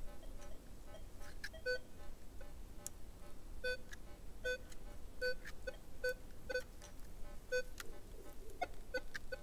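Metal detector beeping as its coil sweeps back and forth over a buried target: short, buzzy beeps of one unchanging mid pitch, roughly one or two a second, each marking a pass over the target, which it is detecting at depth. A few faint sharp clicks come in between.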